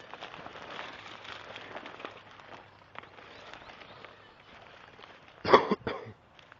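Footsteps crunching and rustling through dry, overgrown grass and dead weed stalks, with a brief loud scuffing burst about five and a half seconds in.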